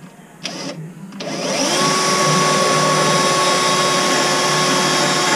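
Power drill spinning up about a second in, its pitch rising, then running steadily at speed as it bores a pilot hole through the boat's hull.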